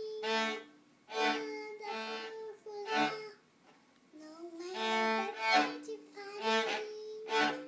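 A beginner's cello bowed in short strokes, a string of separate notes with a pause about three and a half seconds in. A young child sings along.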